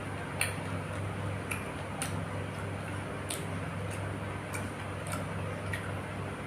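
Close-up eating sounds: about seven sharp, irregular clicks and smacks from mouth and utensils, over a steady low hum.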